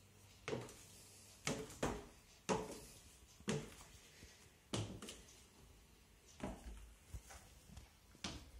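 High-heeled stiletto sandals striking wooden stair treads as someone climbs the stairs: sharp knocks at a slow, uneven pace, roughly one a second.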